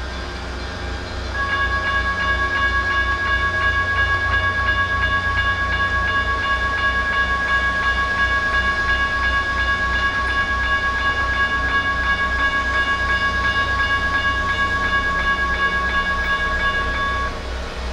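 Railroad crossing's General Signals Type 1 electronic bell ringing loudly and steadily. It starts about a second and a half in and cuts off near the end, when the crossing gates have finished lowering.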